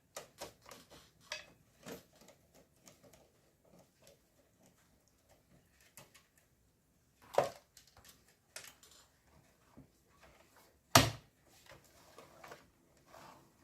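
Small clicks and ticks of a screwdriver taking the screws out of a desktop computer's power supply, with two louder knocks, one about seven seconds in and a louder one about eleven seconds in.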